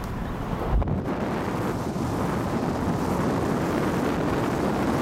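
Wind buffeting the microphone over the steady road and engine noise of a moving car, with a brief low thump about a second in.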